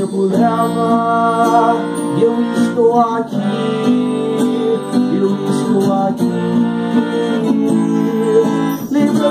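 Reggae band playing a song, with guitar and a sung melody.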